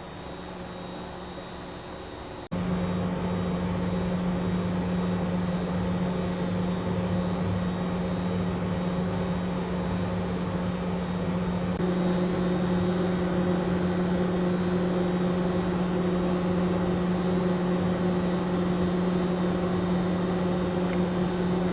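Steady hum of ventilation or air-handling machinery below decks, with a constant low tone. It becomes abruptly louder about two and a half seconds in and then holds steady.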